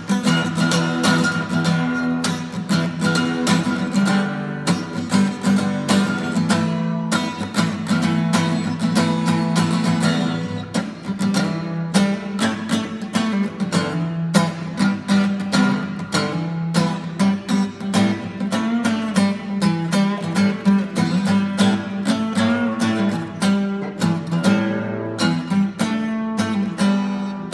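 Steel-string acoustic guitar strummed in a steady chord rhythm, the strokes following closely one after another.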